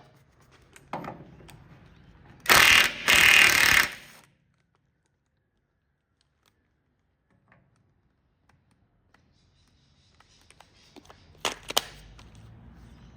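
A wrench rattling as nuts are undone: two loud bursts of about a second each, a few seconds in, then a few sharp clicks near the end.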